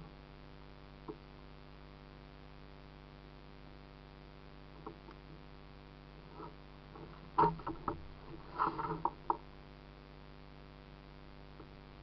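Kayak on the water: a few scattered clicks, then a rapid cluster of knocks and clatter between about seven and nine seconds in, over a steady low hum from the kayak-mounted camera.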